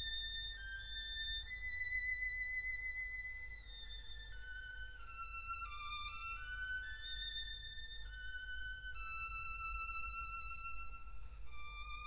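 Background music: a slow solo violin melody of long held notes, some sliding from one pitch to the next, over a steady low rumble.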